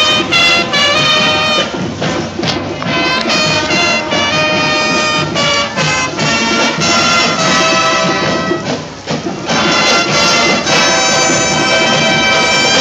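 High school marching band playing: brass holding chords over drums and cymbals.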